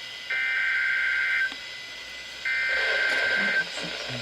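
NOAA Weather Radio SAME header: two bursts of warbling two-tone digital data, each about a second long and a second apart. They are the coded header that opens a new alert, here ahead of a tornado warning.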